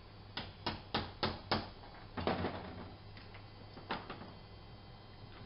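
Hammer tapping a 1/4 inch swaging tool into the end of a soft copper pipe clamped in a flaring block, to stretch the pipe end open into a swage: five quick metallic taps about a third of a second apart, then a short rattle and one more knock.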